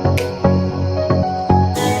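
Background music with a steady beat of pitched notes.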